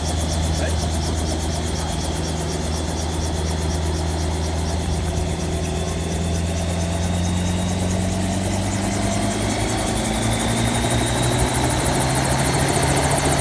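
Sicare SVH-4 training helicopter running on its fixed platform, loud: a steady engine note with the fast, even chop of the spinning main rotor. The pitch creeps up slightly in the second half.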